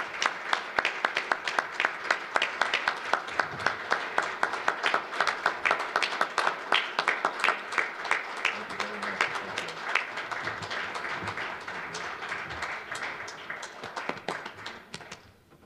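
A small audience applauding: many separate hand claps that thin out in the last few seconds and die away near the end.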